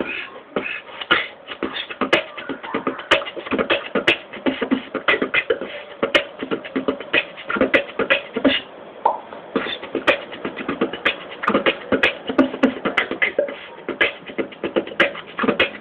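Solo human beatboxing: a fast, dense run of mouth-made kicks, snares and clicks in a steady groove.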